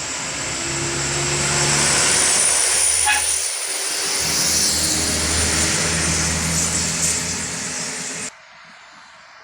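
A heavy vehicle passing close by: a loud, steady engine hum under a high-pitched squeal, dipping briefly partway through and cutting off suddenly near the end.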